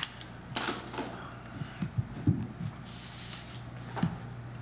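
Pause in a meeting room: a steady low hum with a few brief rustles and soft knocks, like small handling movements of papers or chairs.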